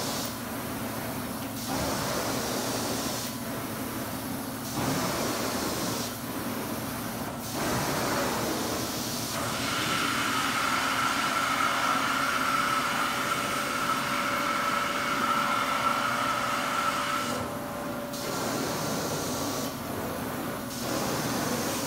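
Hot-water extraction carpet-cleaning wand, a steady suction hiss that dips and swells with each stroke over the carpet. From about ten seconds in, a steady whistling tone holds for several seconds while the wand is carried off the carpet sucking open air. The stroking hiss resumes near the end.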